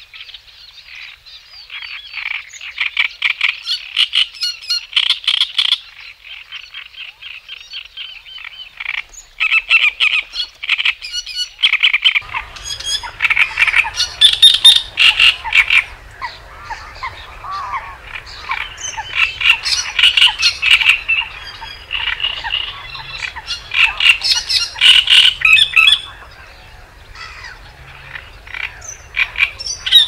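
Chorus of rapid, high chirping trills, coming in bursts of a second or two. About twelve seconds in, a low steady hum joins underneath.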